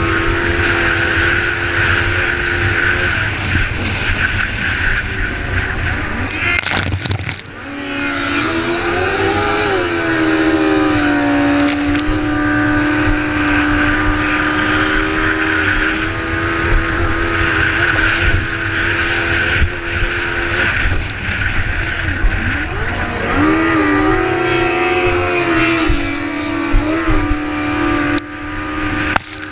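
Race boat's engine running hard at high revs, heard from on board with a rush of wind and spray. About seven seconds in the engine sound briefly dips, then swoops back up in pitch, and the pitch wavers again a little past the middle.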